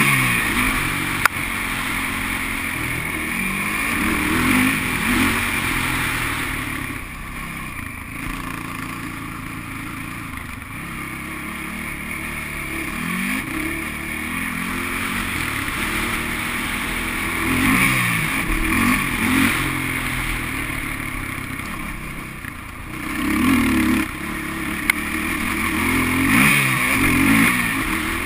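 Sport quad's engine revving up and down as it is ridden hard, the pitch climbing and falling again and again through the throttle and gears, quieter for a few seconds twice. A sharp knock about a second in.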